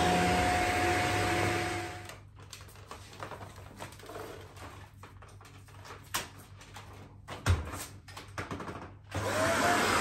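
Vacuum cleaner motor running with a steady whine, switched off about two seconds in. A few clicks and knocks follow, and near the end the motor is switched back on, its whine rising as it spins up.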